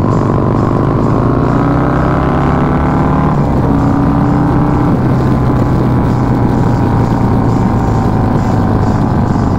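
Harley-Davidson Milwaukee-Eight 131 V-twin motorcycle running through an S&S Super Street 2-into-1 race exhaust while riding. The engine note slides slowly down, then changes pitch a couple of times about midway.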